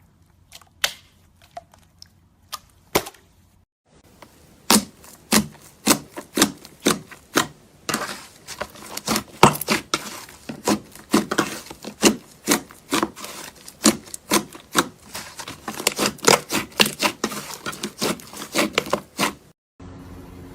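Slime being pressed and squeezed by hand, giving crisp clicks and pops: a few scattered ones at first, then a quick run of about two loud pops a second.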